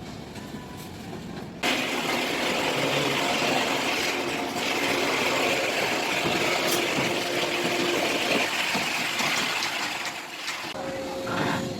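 Loud, steady machinery noise that starts suddenly about two seconds in and stops shortly before the end.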